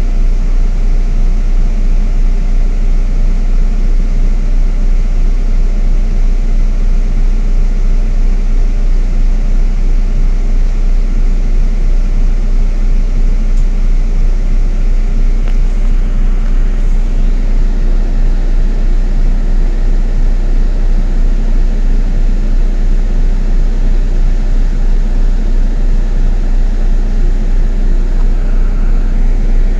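Loud, steady low rumble of a city bus driving, engine and road noise heard from inside the passenger cabin.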